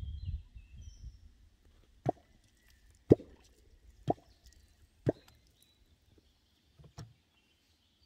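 A catfish clonk (kuttyogató) is struck into the water five times, about a second apart, making sharp plops, the call that draws catfish up to the bait.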